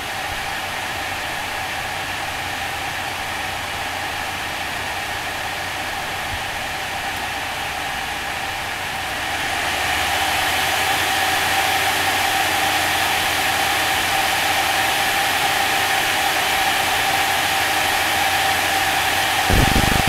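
Sapphire Radeon HD 7970 reference blower-style cooler fan running at 60% speed: a steady rush of air with a steady whine. About ten seconds in it steps up to 80% and gets louder. Just before the end, a cell-phone interference buzz comes in on the recording.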